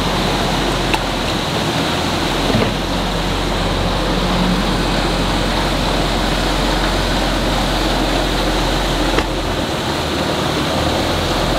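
A trawler's inboard engine idling as a low steady hum under a steady rushing noise, while the throttle and shift lever is worked.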